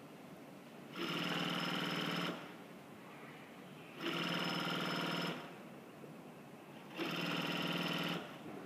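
S-310 double-side cashmere invisible-stitch sewing machine running in three short bursts of just over a second each, about three seconds apart, stopping in between as the cloth is fed.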